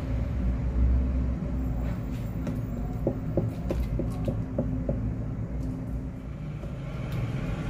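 Spatula scraping thick red bean batter out of a pot into an aluminium foil pan, with a run of about six light taps some three to four and a half seconds in, over a steady low rumble.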